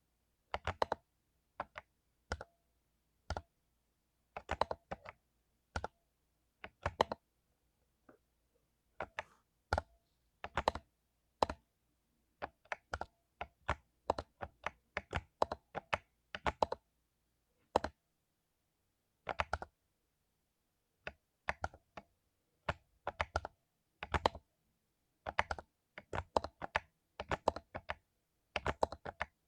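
Typing on a mechanical keyboard with lubed Cherry MX Silver linear switches: irregular runs and clusters of sharp keystrokes with short pauses between them.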